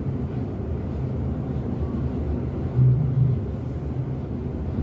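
Steady low background rumble, with a brief louder low thump about three seconds in.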